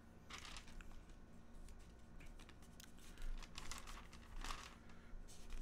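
Paper rustling in several short bursts as the pages of a book and loose sheets are turned and shuffled on a desk.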